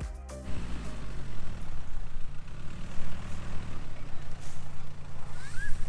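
Van engine running as the van drives slowly toward the camera, a steady low hum. A short, high rising chirp comes near the end.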